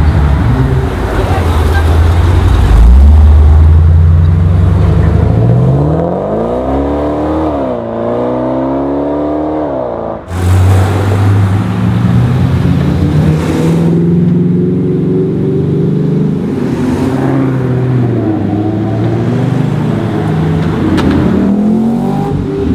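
Chevrolet Camaro SS V8 accelerating hard, its deep note climbing in pitch, dropping briefly at a gear change about eight seconds in and climbing again. The sound breaks off abruptly about ten seconds in, and more V8 engine noise with rising and falling revs follows.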